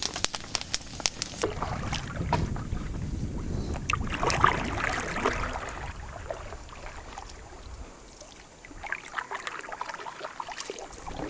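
A campfire crackling for about the first second and a half, then a canoe out on open lake water: wind buffeting the microphone over a low rush of water, with scattered splashes against the hull.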